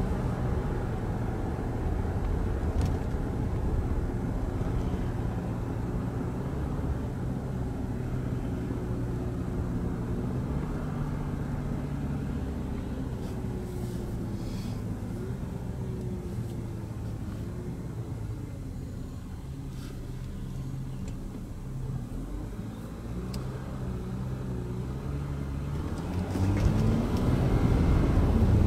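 Volkswagen Amarok's 3.0-litre V6 turbo diesel running while driving, heard from inside the cab, its note stepping up and down in pitch. It grows louder near the end as it accelerates.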